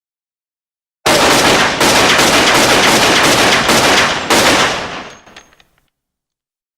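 9mm Glock semi-automatic pistol firing a fast, unbroken string of shots, starting about a second in and lasting roughly three and a half seconds, then the echo dies away.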